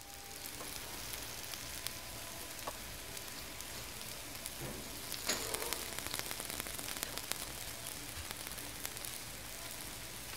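Steak and butter sizzling on a hot iron serving plate: a steady hiss with frequent small pops.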